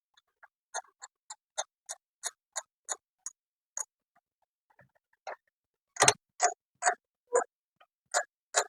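Screwdriver turning a screw into a computer's parts, clicking about three times a second, fainter at first and louder from about five seconds in.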